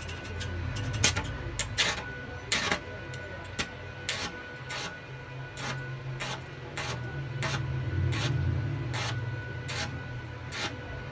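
Stick welding at a steel rail joint: the electrode strikes the arc in short sharp crackles, one every half second to a second, as the rail ends are tacked together.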